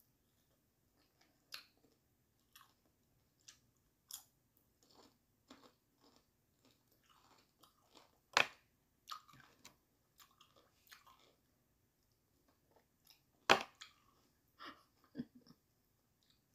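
Quiet close-up chewing and biting of a sticky fried ball of glutinous dough, with scattered wet mouth clicks. Two louder sharp clicks come about eight and thirteen seconds in.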